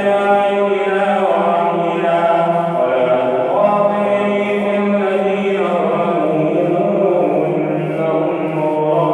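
A male reciter chanting Quranic verses in the melodic tajwid style, holding long drawn-out notes that step slowly between pitches.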